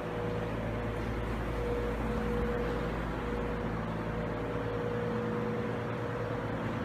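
Steady low hum of an idling vehicle engine, with a constant higher tone held over it.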